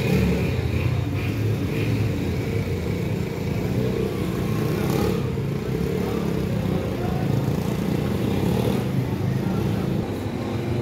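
Street traffic on a wet road: motorcycles and motorcycle rickshaws passing, their small engines making a steady low rumble with tyre noise over it.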